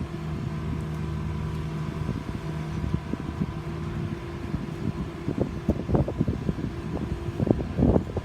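An engine running steadily with a low, even hum. Irregular knocks and clatter join it and become frequent and louder over the last few seconds.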